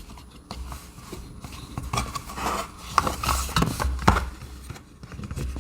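Handling noise as a doorbell is fitted into its mount casing and a foam filler is pushed in at the bottom: rubbing and scuffing with a few sharp clicks, the loudest about three and four seconds in.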